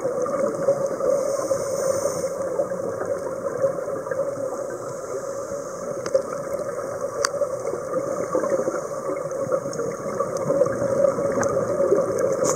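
Underwater sound recorded through a camera housing: a steady, muffled rush of water with a constant hum underneath, and a single sharp click about seven seconds in.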